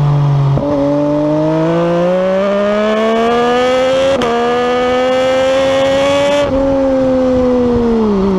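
MV Agusta Dragster 800's three-cylinder engine pulling hard with its pitch climbing, a gear change about four seconds in, then the throttle closing about six and a half seconds in and the revs falling as the bike slows.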